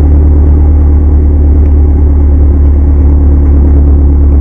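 Car engine running loud and steady through an exhaust pipe freshly patched with exhaust bandage and a hose clamp over a pinhole leak, heard close up from under the car. The low exhaust throb stays even, with no revving.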